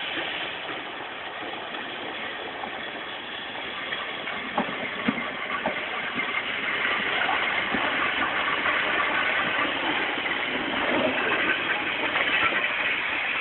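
Steam train running, a steady mechanical noise that grows gradually louder, with a few light knocks about five seconds in, heard through an old mobile phone's microphone.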